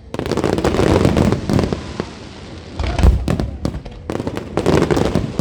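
Fireworks display going off in three clusters of rapid bangs and crackling, with short lulls between them.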